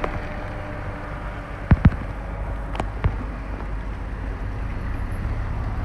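Steady low rumble of outdoor noise, with a few sharp knocks: two close together nearly two seconds in, then two more around three seconds.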